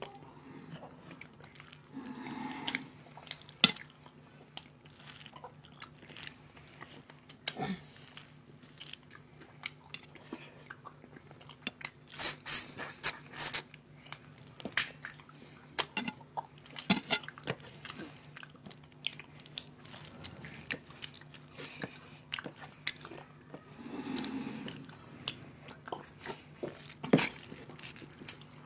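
Two people eating rice and fish curry with their hands: close chewing and mouth sounds with many short, sharp clicks from fingers and food on steel plates, and a denser run of crackly clicks about twelve seconds in. A faint steady low hum lies under it.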